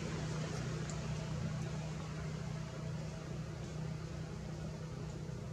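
Steady low hum of a running engine over an even hiss.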